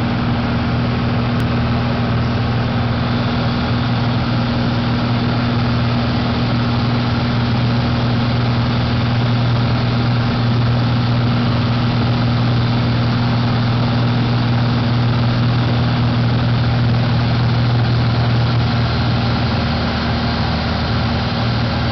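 Engine and propeller of a single-engine light aircraft heard from inside the cockpit: a loud, steady drone with a strong low hum.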